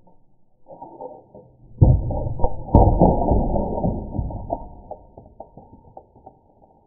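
Muffled knocks and clattering as a wooden snap mousetrap is handled and set down on a desk, starting suddenly about two seconds in with the sharpest knock just after, then smaller taps that die away.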